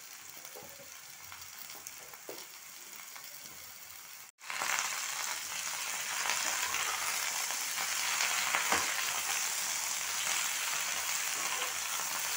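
Cubed potato and eggplant sizzling as they fry in hot mustard oil in a kadhai. The sizzle cuts out for an instant about four seconds in, then comes back louder and steady.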